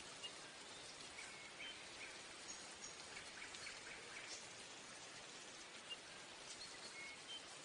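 Near silence: a faint steady hiss with scattered soft clicks and a few tiny high ticks.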